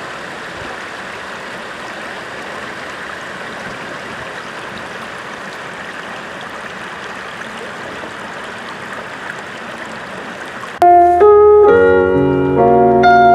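Shallow stream running over a bed of stones, a steady rush of water. About eleven seconds in it cuts off abruptly and louder piano music begins.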